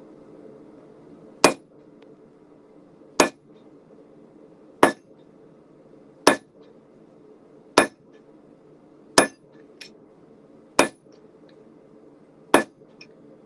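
Hand hammer striking hot steel on an anvil, cutting the bar over a hot cut hardy: eight slow, evenly spaced blows about a second and a half apart, each with a brief ring. A steady hum from the propane forge burner runs underneath.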